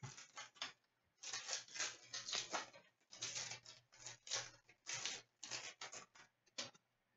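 Foil wrapper of an Upper Deck Series 2 hockey card pack crinkling as it is torn open, and the cards rustling and sliding against each other as they are handled. It comes as a faint string of short, scratchy rustles.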